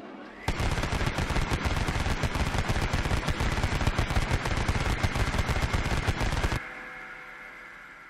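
Vulcan rotary machine gun sound effect: a faint rising whine, then about six seconds of continuous, very rapid fire that cuts off suddenly, followed by a fading whine and ring-out.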